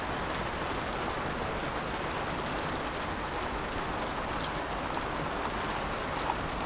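Heavy rain falling steadily, a constant hiss with scattered drops ticking.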